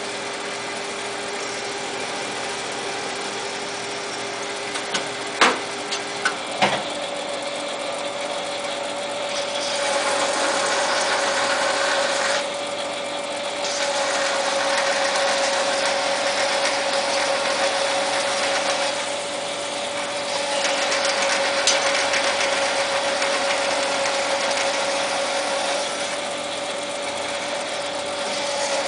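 Small Jet TL-25 turret lathe running, with a steady machine tone that steps up in pitch about seven seconds in, after a few sharp mechanical clicks and clunks. Through the second half, stretches of louder rough cutting noise come and go as the tools work the 12L14 steel coupling stock.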